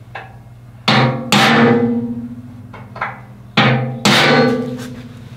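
Four hard hammer blows on the steel loader bucket of a John Deere 1025R, in two pairs, each ringing on and fading over a second or more. This is striking the hole positions just marked on the bucket. A steady low hum runs underneath.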